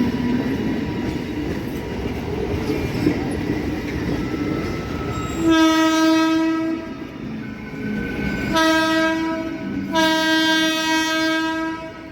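A train rumbles along the track, then its horn sounds three blasts of about one to two seconds each, the last the longest.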